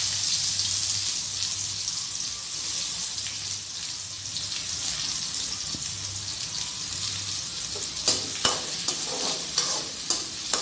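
Chopped onions sizzling in hot oil with whole spices. From about eight seconds in, a spatula scrapes and taps against the pan several times as they are stirred.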